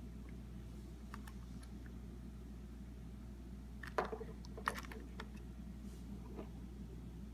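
Light plastic clicks and taps from a 3D-printed eNABLE Phoenix v2 prosthetic hand being handled and turned over, the sharpest click about four seconds in, over a steady low hum.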